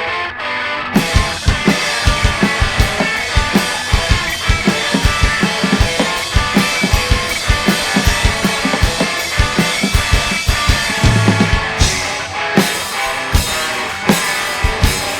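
Live rock band playing an instrumental passage: drum kit, distorted electric guitars and bass, the full band crashing in about a second in with steady drum hits throughout and a short break near the end before it resumes.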